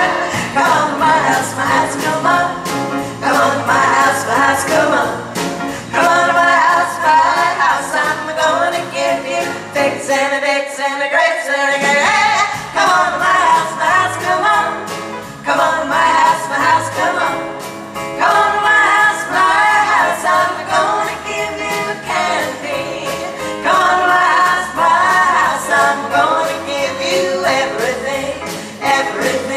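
A vocal group of four women singing together in close harmony, live through microphones, with piano and drum accompaniment; the accompaniment thins briefly about ten seconds in, then comes back fuller.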